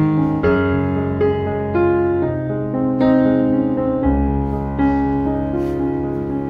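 Background piano music: a slow melody of single notes over held low chords.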